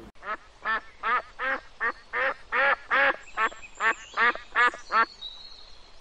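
Mallard duck quacking in a steady run of about a dozen loud quacks, roughly three a second, stopping about five seconds in.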